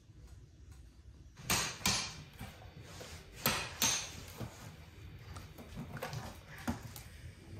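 Hard knocks and clatter of kitchen work: two pairs of loud, sharp strikes in the first half, then lighter, scattered taps.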